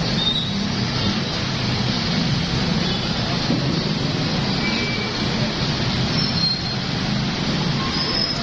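Steady low rumble of background noise with no clear single source, with a few brief faint high chirps over it.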